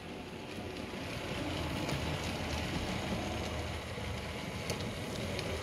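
Model locomotive running on the track out of view, a steady rumble of motor and wheels that grows slightly louder as it approaches, with a few faint ticks.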